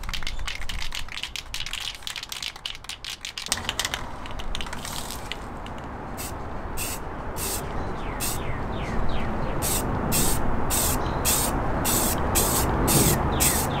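Aerosol spray-paint cans hissing in short bursts about two a second, from about six seconds in, over background rock music with electric guitar. A quick run of clicks in the first few seconds.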